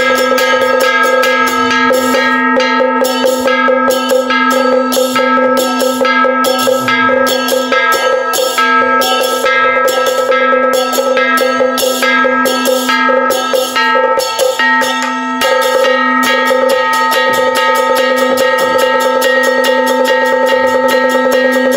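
Taoist ritual music: a fast, steady beat on small percussion over a held, unwavering pitched tone, thinning briefly about two-thirds through.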